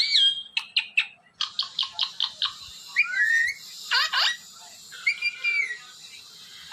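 Ringneck parrot whistling and chattering: a few sharp clicks, then a quick run of short notes about a second and a half in, followed by several sliding whistles that rise and fall in pitch.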